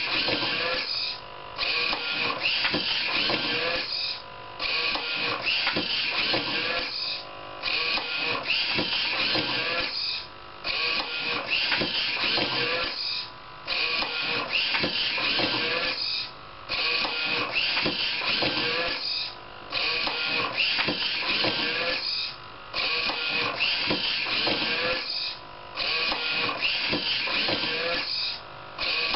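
Homemade automatic book scanner running through its page-turning cycle: a busy mechanical noise of motors and moving pages that breaks off briefly about every three seconds, once per page.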